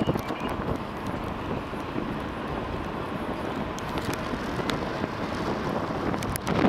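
Steady road and wind noise of a moving car, heard from inside the cabin.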